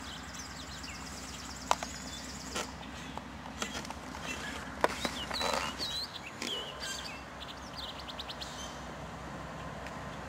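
Birds chirping and trilling over the steady low rumble of Norfolk Southern diesel freight locomotives (a D9-40CW and an ES-40DC) drawing near. Two sharp clicks stand out, one near two seconds in and one near five.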